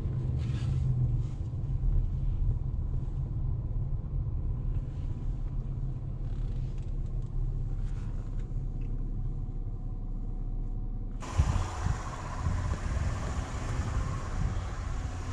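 Car rolling slowly, heard from inside the cabin as a steady low rumble of engine and road noise. About eleven seconds in, the sound changes abruptly to a brighter outdoor hiss with a couple of knocks.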